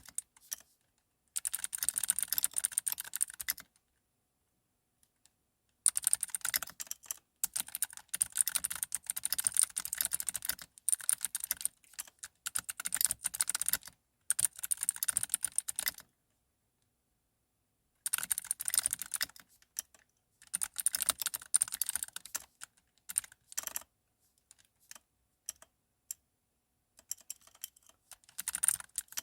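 Typing on a computer keyboard: runs of rapid key clicks lasting a few seconds each, broken by short pauses. The longest pause comes about sixteen seconds in.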